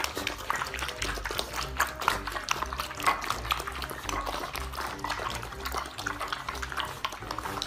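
Several puppies eating from bowls together: a busy, irregular run of quick wet lapping and slurping clicks.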